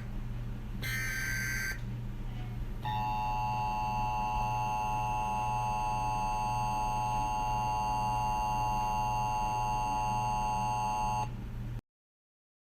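Emergency Alert System data bursts: the tail of one short burst of digital tones, then another about a second in. After them comes a steady electronic alarm tone of several pitches, held for about eight seconds before cutting off. A low steady hum sits under it throughout.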